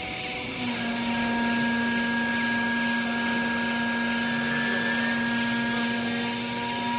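Hydraulic pump motor of a textile baler running, a steady hum and whine that settles to an even pitch about half a second in, over a hiss.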